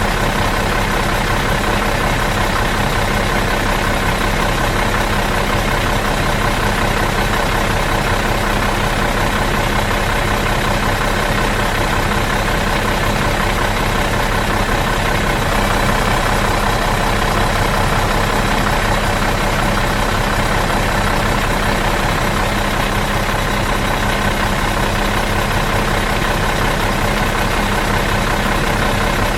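Bus engine idling in neutral with a steady, unchanging hum.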